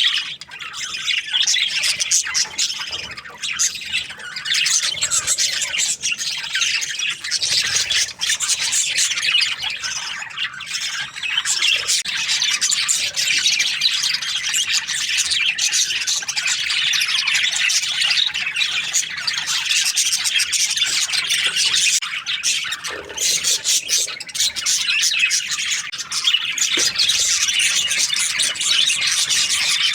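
Many budgerigars chirping and chattering at once, a dense unbroken twitter of overlapping high calls.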